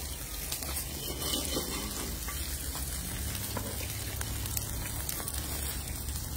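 Open wood fire crackling and hissing under chicken grilling on a wire grate over the coals, with scattered small pops throughout.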